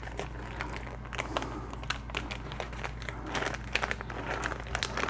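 Plastic packaging and paper being handled: soft, irregular crinkling and rustling with many small clicks.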